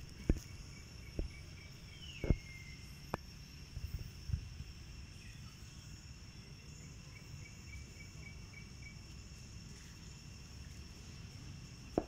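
Steady, high-pitched drone of insects in the surrounding forest, with a few sharp knocks and rustles in the first half, the loudest about two seconds in.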